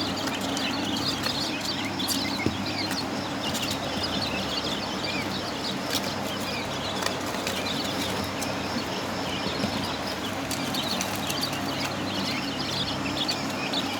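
Many Japanese quail chirping continuously in rapid, overlapping high calls, over a steady low hum.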